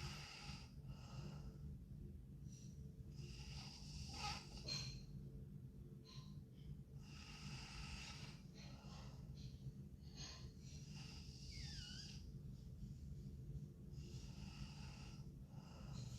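A sleeping girl snoring faintly: slow, noisy breaths about every three seconds, one with a brief falling whistle about three-quarters of the way through, over a steady low hum.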